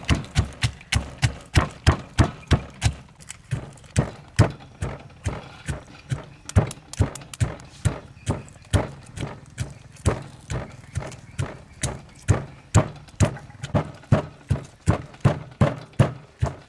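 Stone pestle pounding in a stone mortar, crushing garlic cloves and whole spices: a steady run of dull knocks, about three a second.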